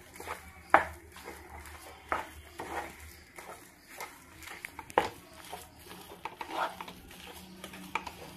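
Spatula stirring and pressing spiced mashed potato in a nonstick frying pan, with irregular scrapes and knocks against the pan. The sharpest knocks come about a second in and about five seconds in.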